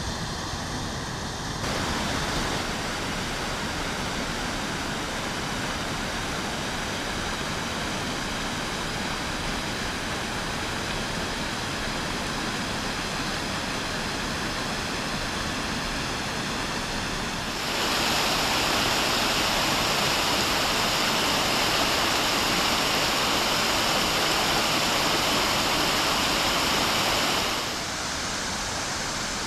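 Steady rush of a waterfall's falling water. About two-thirds of the way through it jumps louder and brighter for roughly ten seconds, then drops back suddenly.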